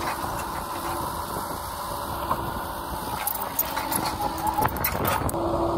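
An excavator running its hydraulic flail mower attachment: a steady machine hum with a held tone. A run of sharp clicks and cracks comes in the second half.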